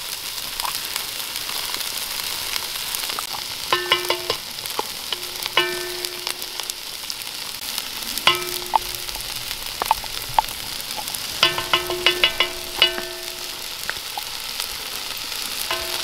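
Onions and celery sizzling steadily in a hot cast iron Dutch oven, with a stick scraping and knocking tomato paste out of a tin can. The can rings in several short clusters of taps.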